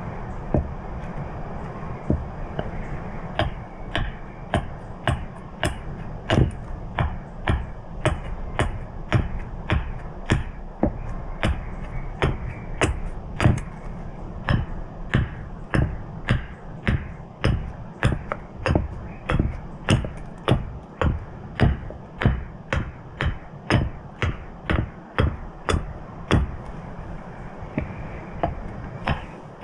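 Sharp knocks repeating steadily about twice a second, from striking a tool into the wood while carving a spoon blank, over a low steady rumble.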